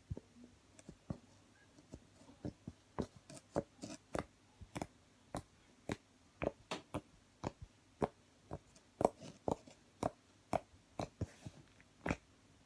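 Fluffy slime being squeezed and pressed by hand, giving an uneven run of sticky pops and clicks, about two or three a second.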